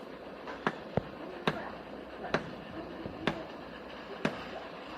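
Sharp knocks repeating about once a second, six in all, over a steady background hum of work noise.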